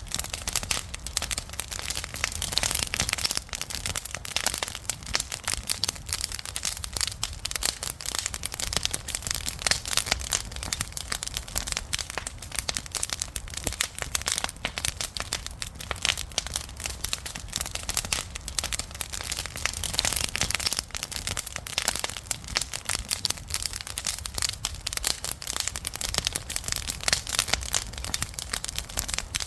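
Wood fire burning with constant crackling: a dense stream of sharp pops and snaps over a steady hiss, with a low rumble beneath.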